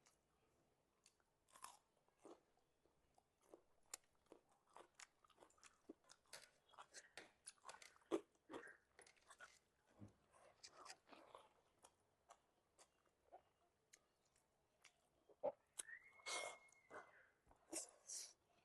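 Faint close-up eating sounds: a person chewing, with irregular wet mouth clicks and smacks. A brief squeaky tone near the end.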